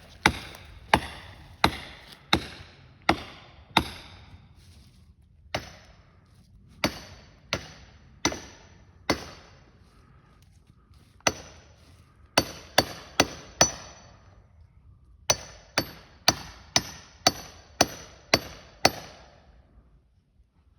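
Axe chopping into a standing hardwood tree that is being felled: sharp, ringing blows in runs with short pauses between them, about one every 0.7 s at first and quicker near the end, as the cut nears the point where the tree goes over.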